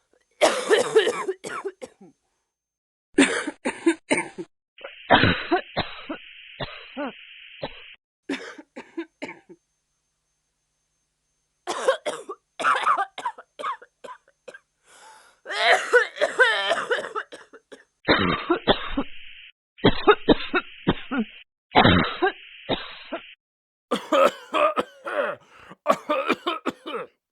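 Human coughing: a run of separate coughing recordings, some short single coughs and some fits of several coughs in quick succession, with stretches of dead silence between clips.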